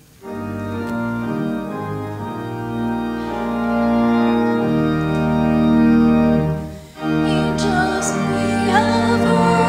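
Church organ playing held chords of a hymn introduction, with a brief break about seven seconds in. After the break, voices begin singing along with the organ.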